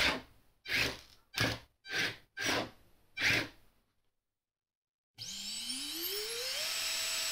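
Small electric motors of a 150 g antweight combat robot whirring in six short bursts as it twitches on the bench. About five seconds in, the robot's brushless saw motor starts and spins the saw up with a rising whine, then holds a steady high whine at speed.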